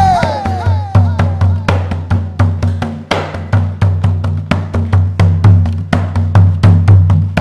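Live band playing an instrumental break in a bumba-meu-boi rhythm: fast, dense percussion with wooden clacks over a steady bass line, no singing.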